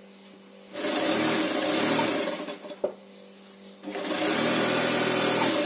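Brother sewing machine running a straight stitch in two bursts of about two seconds each, with a short stop between them. A single click falls in the pause, and a low steady hum is heard while the needle is stopped.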